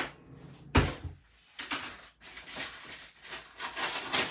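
A knock, then a thump about a second in, followed by a run of short rubbing and scraping sounds from things being handled in a kitchen.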